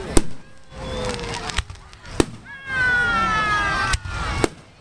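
Aerial firework shells bursting in about four sharp bangs, the loudest just after the start and the others at irregular intervals. Between the bangs come long, slowly falling pitched tones.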